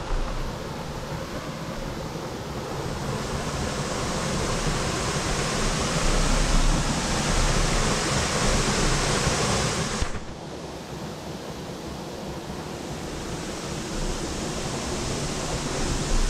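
Steady rush of flowing water, an even hiss without any pitch. It builds over the first few seconds, drops off suddenly about ten seconds in, then slowly swells again.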